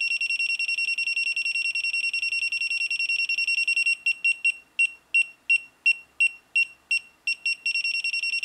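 A clamp meter's no-contact voltage sensor beeps high-pitched near a live mains cord, signalling that AC voltage is detected. The beeps come rapidly, slow to about three a second around four seconds in, then speed up again near the end.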